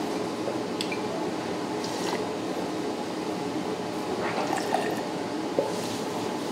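Wet chewing and slurping of someone eating buckwheat soba noodles, over a steady background hiss.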